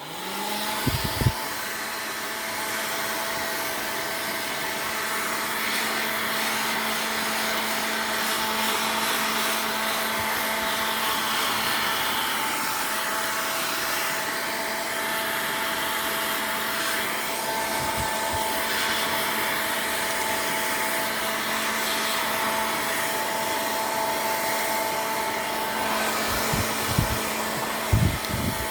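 Hair dryer switched on and running steadily with a steady whining hum, drying a kitten's wet fur after its bath. A few dull low bumps come about a second in and again near the end.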